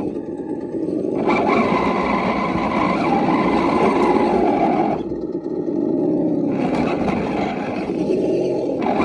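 An RC rock crawler's electric motor and gearbox whine in two throttle bursts as it crawls over rocks, under a steady rumble of the drivetrain and tyres. The whine starts about a second in, drops out near the middle and picks up again a second and a half later.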